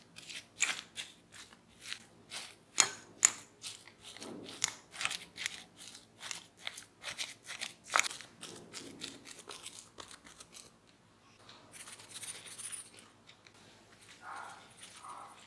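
Metal fork mashing soft boiled potatoes in a glass bowl: repeated clicks and scrapes of the tines against the glass, about two or three a second, stopping about ten seconds in. Then comes a soft hiss and a few light brushing sounds as seasoning is spooned onto the mash.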